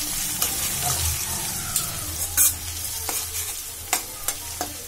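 Grated ginger, green chillies and whole spices sizzling in hot mustard oil in a metal kadhai, stirred with a metal spatula that clicks and scrapes against the pan several times, the loudest click about halfway through.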